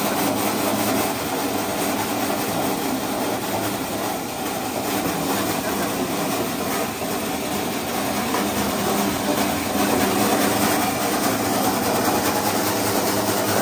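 Electric 23-blade stainless steel fish-slicing machine running steadily under load, its belt-driven cutters chopping whole small fish fed into the hopper into slices about a centimetre thick.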